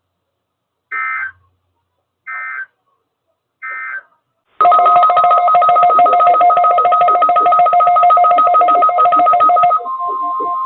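Three short bursts of Emergency Alert System (SAME) digital data tones, about a second and a half apart: the end-of-message code that closes the weekly test. About four and a half seconds in, a loud steady alert tone of two pitches starts, narrowing to a single steady tone near the end.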